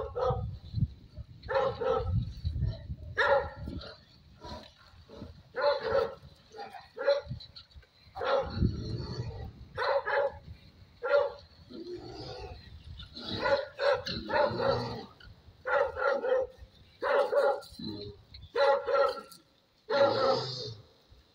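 A hunting dog baying at a stuffed bear decoy on a cart: repeated sharp barks, about one a second and unevenly spaced, the dog holding the 'bear' at bay as in bear-barking training.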